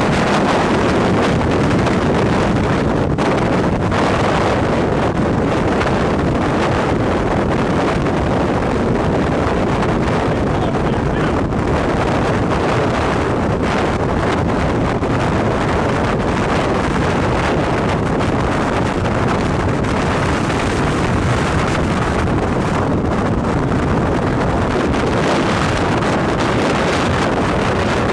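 Strong, steady wind rushing over the microphone, a continuous loud rumbling hiss.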